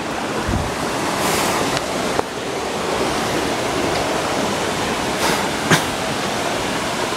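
Steady, even rush of fast-flowing water from a stream swollen by heavy rain, with a few brief knocks over it.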